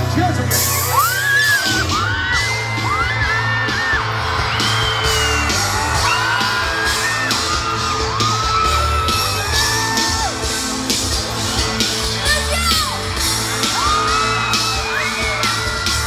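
Loud music with a heavy bass line playing over a sound system, with repeated fireworks bangs and a crowd whooping and yelling.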